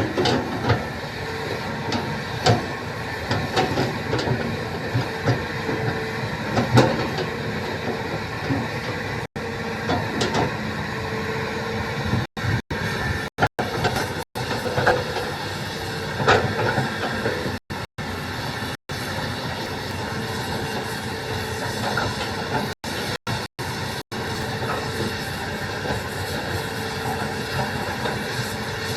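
Heavy diesel machinery, likely an excavator, running steadily with scattered clanks and knocks. The sound cuts out for split seconds several times in the middle stretch.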